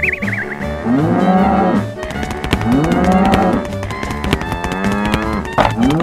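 A cow mooing several times, each moo about a second long and rising then falling in pitch, over background music.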